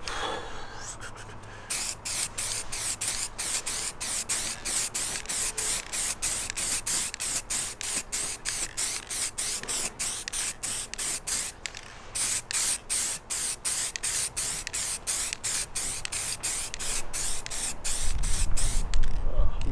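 Aerosol can of gloss black spray paint hissing in short rapid pulses, about three a second, as a base coat goes onto a plastic bumper grill, with a brief pause about twelve seconds in. A low rumble comes in near the end.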